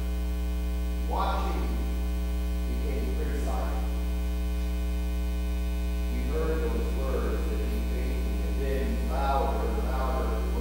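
Steady electrical mains hum running through the recording, under a man's voice speaking in short phrases with pauses between them.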